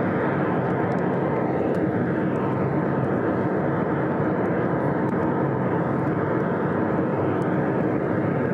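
A steady, loud roaring rush of noise: a meteorite sound effect.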